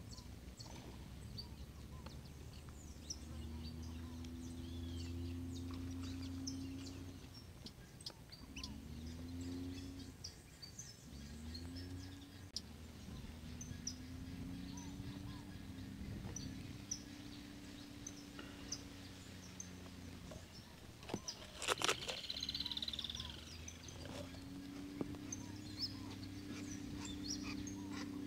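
Small birds chirping in short high calls, over a low drone that swells and holds for several seconds at a time, over and over. One louder, sharper sound comes about twenty-two seconds in.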